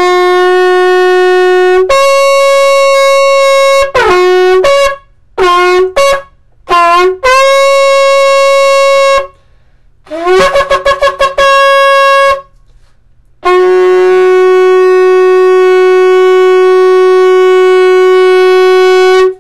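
Shofar blown in a sequence of loud calls: a long blast that steps up to a higher note, three short blasts, another long blast, a run of rapid stuttering notes, then a long steady final blast of about six seconds that cuts off sharply. The sequence follows the traditional shofar calls: long blasts, broken short blasts, a rapid staccato burst, and a long closing blast.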